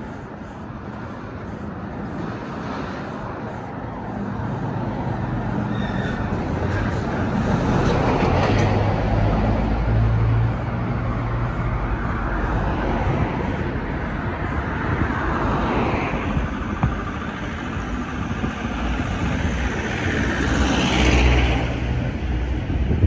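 Road traffic on a street: cars passing one after another, their tyre and engine noise swelling and fading over a steady traffic hum, loudest about eight to ten seconds in and again near the end.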